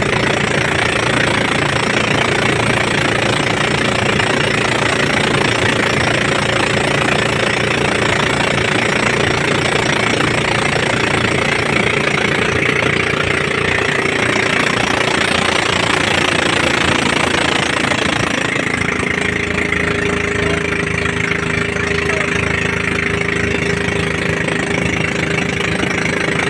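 Outrigger fishing boat's engine running steadily under way, over a rush of wind and water. About 18 seconds in the rushing hiss drops and the engine's steady drone stands out more clearly.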